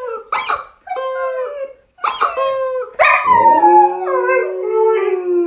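Dog howling: a few short howls, then about three seconds in a long howl that slides down in pitch and holds.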